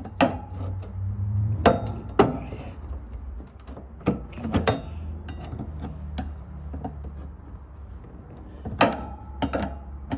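A screwdriver working at a car's wiper arm to prise it off its spindle: scattered sharp metal clicks and knocks, a few of them close together in pairs, over a low steady hum.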